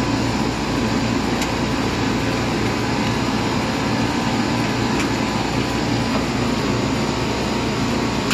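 Commercial freezer's outdoor condensing unit running steadily, compressor cut in and condenser fan turning. Two faint ticks come about a second and a half in and again about five seconds in.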